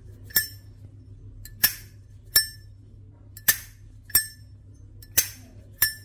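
Zippo Armor Harley-Davidson lighter, brass case with hinged lid, being flicked open and snapped shut over and over. There are seven sharp metallic clicks, each with a brief bright ring, roughly in open–close pairs. The seller finds the ring nice and puts it down to the engraved lid sounding like a bell.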